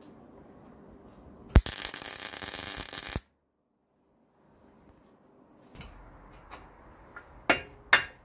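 MIG welder striking an arc on the steel bushing sleeve of a control arm: a sharp click about a second and a half in, then about a second and a half of loud crackling that cuts off suddenly. Two sharp metallic clicks come near the end.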